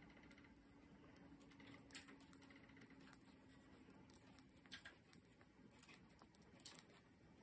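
3.5 mm knitting needles clicking faintly and irregularly as stitches are worked, with a few sharper clicks about two, four and a half and six and a half seconds in. A faint steady hum lies underneath.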